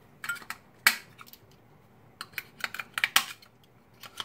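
AA batteries being fitted into the plastic battery compartment of a motion-activated night light: irregular sharp clicks and clacks of battery against plastic and spring contacts, the loudest just under a second in and a quick run of them in the second half.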